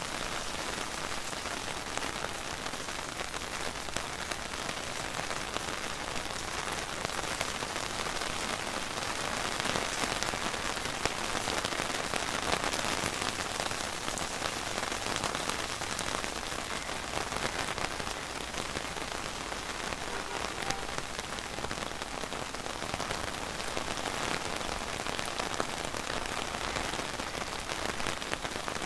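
Steady rain falling, an even hiss with scattered drop ticks, growing slightly heavier partway through.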